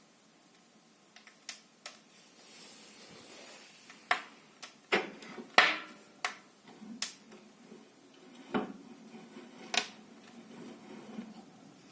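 Irregular sharp clicks and knocks from the Morso 1630 cast-iron wood stove, about a dozen spread over several seconds, the loudest about halfway through.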